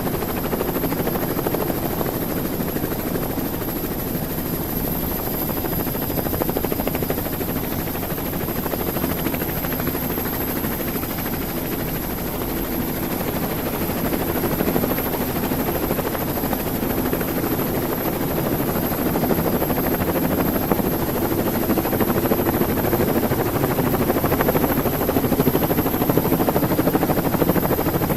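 Helicopter in flight, its turbine engine and rotors making a steady, dense drone with no breaks.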